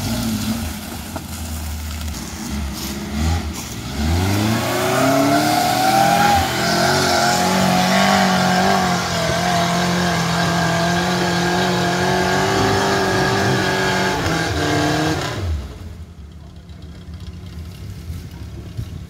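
Off-road jeep's engine revving hard as it climbs a steep slope. It runs low for a few seconds, rises sharply about four seconds in, holds at high revs under load, then drops away sharply about fifteen seconds in.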